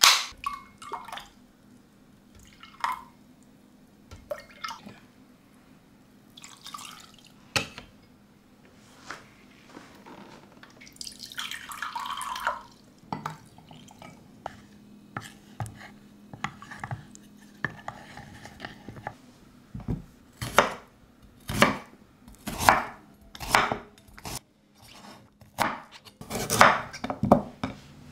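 A pull-tab can of pear juice popping open, then liquid poured and a wooden spoon stirring sauce in a glass mug. In the last third a kitchen knife chops vegetables on a wooden cutting board in a quick run of sharp strokes.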